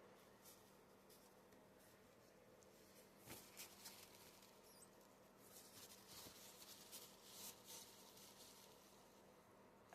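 Near silence, with faint scattered clicks and soft rustles of a small squeeze fidget toy being handled.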